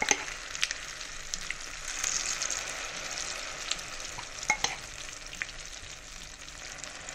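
Hot oil and sesame seeds sizzling in a frying pan around a layer of freshly poured handvo batter, a steady hiss broken by scattered small pops and crackles.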